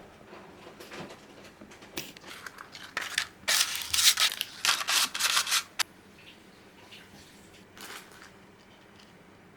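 A cluster of crisp, scratchy rustling noises about three to six seconds in, with a few fainter ones before and after, as of packaging being handled or cut open.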